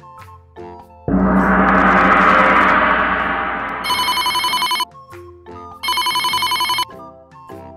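A gong struck once about a second in, swelling and ringing out for nearly three seconds. Then a classic telephone bell rings twice, each ring a rapid trill about a second long.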